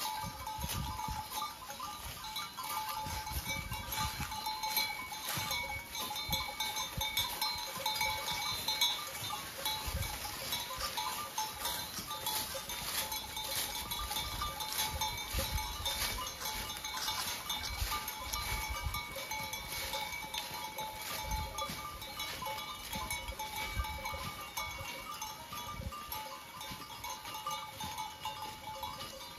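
A herd of goats walking over dry fallen leaves: many hooves and steps crackling the leaves, with the goats' bells ringing steadily throughout.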